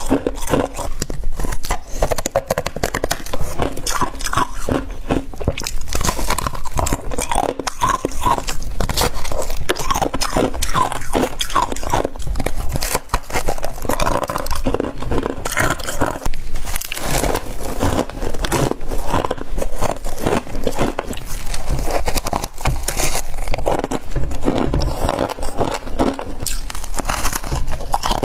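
Close-up crunching and chewing of humidifier frost: steady, rapid crunches as mouthfuls of fluffy ice are bitten and chewed, with no let-up.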